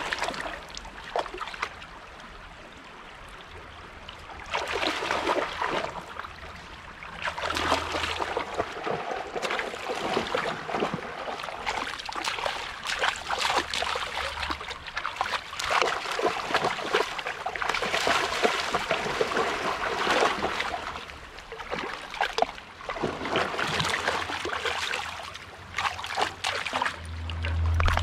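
Dogs wading and splashing through a shallow, stony stream, with water sloshing and splashing close to the microphone in irregular surges and a quieter stretch a few seconds in.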